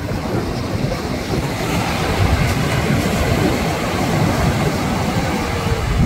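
Ocean surf washing ashore, swelling about two seconds in, with wind buffeting the microphone.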